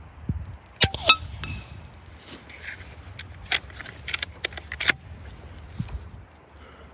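A .25 Hatsan FlashPup PCP air rifle fires once, a sharp crack with a brief metallic ring. A few seconds later comes a quick run of sharp mechanical clicks.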